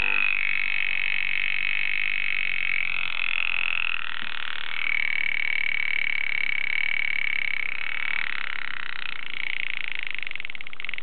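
Alarm of a 1920s Hamburg American Clock Company (HAU) wind-up alarm clock going off: the hammer rattles rapidly and continuously on the bell, the ringing tone shifts a few times, and it breaks into separate strikes just before it stops near the end.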